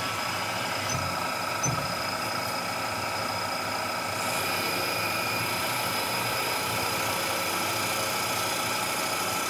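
CNC vertical milling machine's spindle running with a steady whine as its small cutter scribes lettering into the side of an AR-15 pistol grip. There are two low knocks in the first couple of seconds, and a hiss joins about four seconds in.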